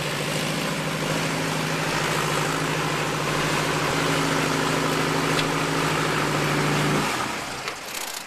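Helicopter engine running at idle with the rotors turning, a steady pulsing drone. About seven seconds in the engine cuts off abruptly, leaving a fainter whoosh of the still-turning rotors and wind.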